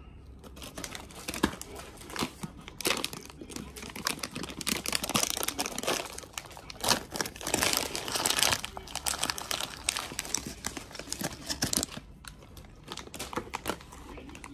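Clear plastic snack bag crinkling as it is handled and pulled open by hand: a dense crackle, heaviest in the middle, thinning to scattered clicks near the end.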